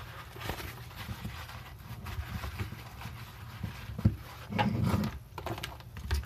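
Paper towel rustling and rubbing as an oily VW D-Jetronic MAP sensor is wiped by hand, with a few light knocks as the sensor is handled on the countertop; the rustling is loudest a little after the middle.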